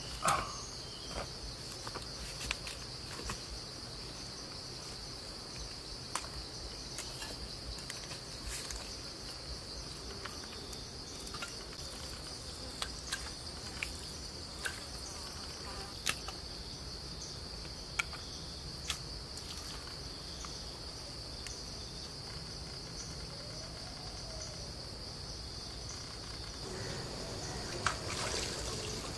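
A steady high-pitched insect drone, with scattered sharp crackles and snaps from an open fire of twigs and leaves.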